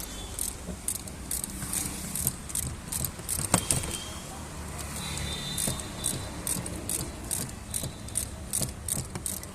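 Metallic clinking and rattling, repeated about two to three times a second over a steady low hum, with one sharper click about three and a half seconds in.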